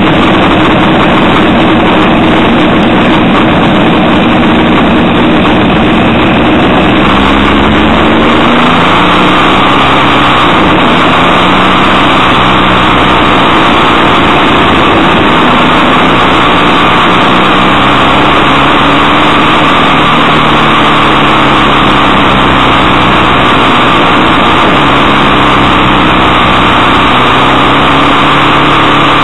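Motorcycle engine running on the move, its note rising and falling repeatedly with the throttle, under heavy, steady wind rush on the microphone.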